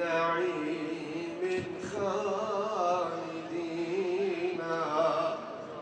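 A man's voice chanting an Islamic devotional supplication (ibtihal), with long held, wavering notes and short breaks between phrases.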